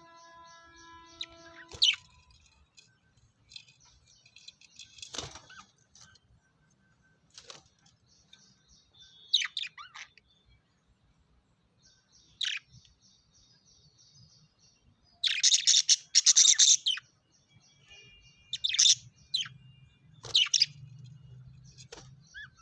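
Small pet parrots chirping and chattering: sharp high chirps every few seconds over soft continuous twittering, with a loud burst of rapid calls about two-thirds of the way through.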